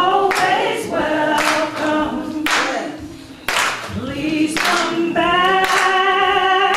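A woman singing a gospel welcome song into a microphone, holding long notes, with choir voices joining in. Hands clap along about once a second.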